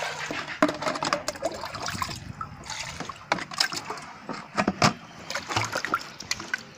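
Water splashing and sloshing in a container, broken by frequent sharp clicks and knocks of things being handled in it.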